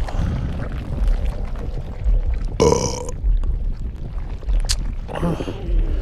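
A person's burp, close to the microphone, about halfway through. Soft low thumps repeat underneath about every second and a bit.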